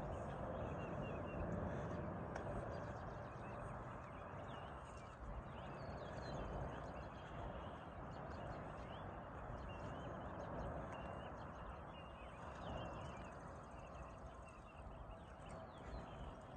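Outdoor park ambience: footsteps on a paved path, with small birds chirping on and off in the background.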